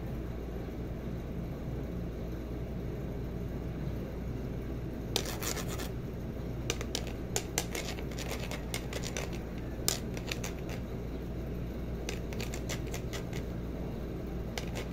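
Scattered sharp clicks and scratches in irregular clusters over a steady low hum.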